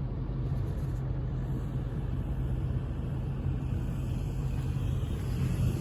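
Lifted Toyota Camry's engine running steadily, a low even hum, as the car sets off to climb an off-road slope.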